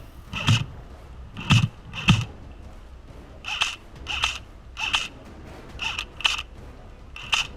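Airsoft gun fired in single shots: about ten sharp clacks spaced half a second to a second apart, the first few with a low thump.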